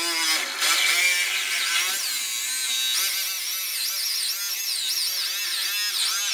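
Power drill driving a hole saw through the steel sheet metal of a VW Bus door, cutting out a round section of rusted metal. The teeth screech steadily, with a pitch that wavers up and down, and the cutting stops right at the end.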